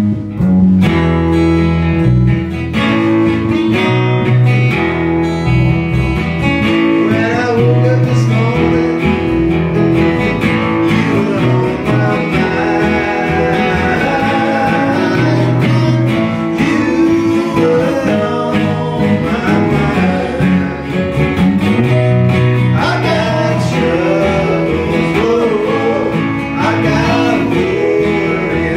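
A small band playing a song live: strummed acoustic guitar, electric bass and keyboard, with two men singing from about seven seconds in.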